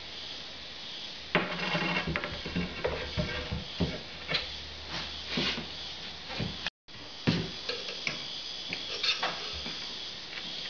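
Metal scraper scraping and tapping across a laminated board bench top in short, irregular strokes, clearing off anything sticking up before tiling.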